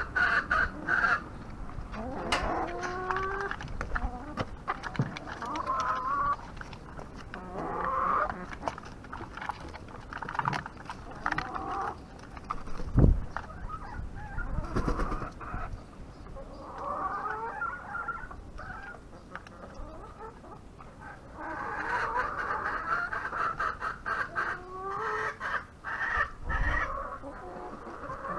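Backyard chickens clucking and calling on and off, many short wavering calls overlapping, with a few scattered clicks and knocks.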